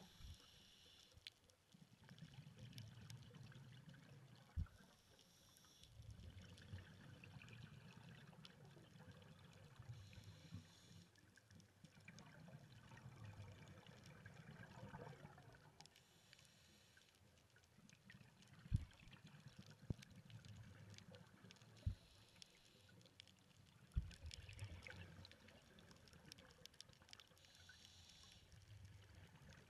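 Faint underwater sound of scuba bubbles: bursts of bubbling from a diver's exhalations every five or six seconds over a low rumble. A few sharp knocks stand out as the loudest sounds.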